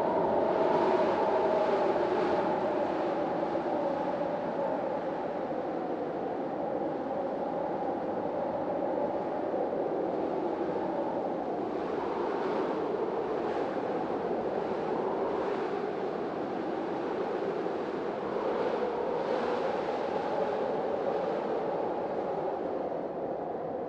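Hurricane-force storm wind blowing steadily, with a wavering, moaning howl and several hissing gusts that swell and fade.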